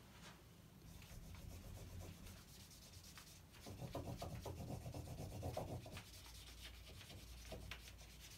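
Faint rubbing of a highlighter pen marked back and forth across a paper sheet taped to a door, louder between about four and six seconds in.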